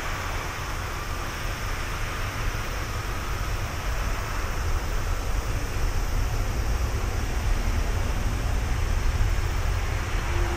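Jet engine noise from an Airbus A330-300's two Rolls-Royce Trent 700 turbofans at takeoff power during the takeoff roll: a deep rumble with a hiss over it, growing steadily louder.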